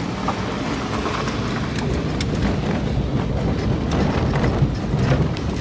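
Kei van driving slowly along a rough gravel campsite road: steady engine and tyre noise with scattered small crackles of gravel under the tyres.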